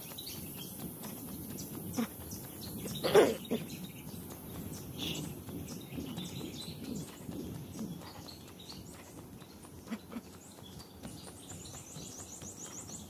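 A jogger's running footsteps and the jostle of the handheld camera, with one short louder sound about three seconds in. Near the end a bird gives a quick run of high chirps.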